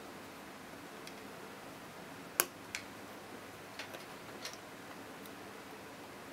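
Small sharp metal ticks as a needle-thin ground-down screwdriver tip catches against the titanium pocket clip and its spring pin, still without freeing the pin. A few scattered clicks, the loudest about two and a half seconds in, with several more over the following two seconds.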